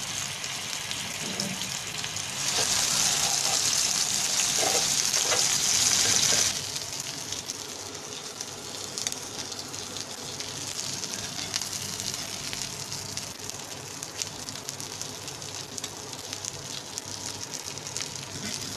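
Beef chapli kababs shallow-frying in oil on a flat black griddle: a steady sizzle with fine crackling spits. The sizzle grows louder about two and a half seconds in and drops back about four seconds later.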